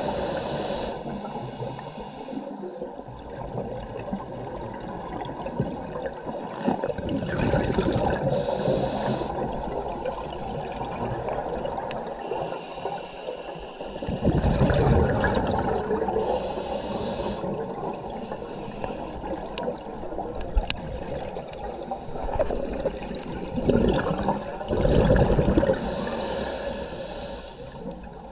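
Scuba regulator breathing heard underwater: a short hiss on each inhalation every few seconds, and rumbling, gurgling bursts of exhaled bubbles between them.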